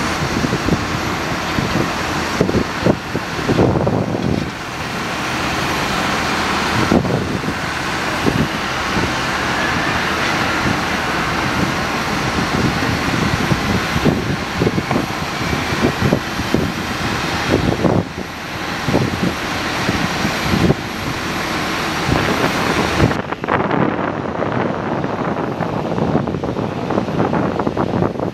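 Boeing 737-800 jet engines running during pushback by a tug: a steady loud hiss and whine with uneven low rumbles. A faint rising whine comes in about ten seconds in. The high hiss falls away near the end.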